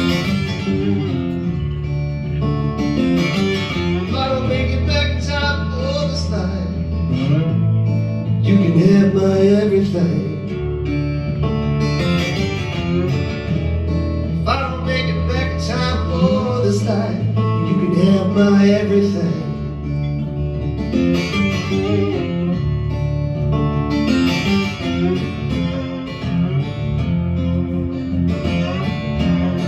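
Instrumental passage on a guitar played flat across the lap, slide style, with notes gliding between pitches over sustained low notes.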